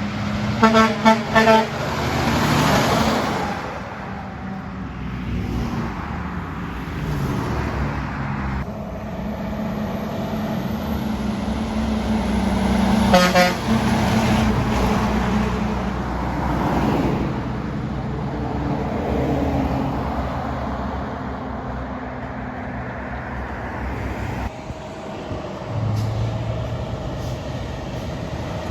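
Trucks passing on a road, engines running steadily, with short truck-horn blasts about a second in and again around thirteen seconds in.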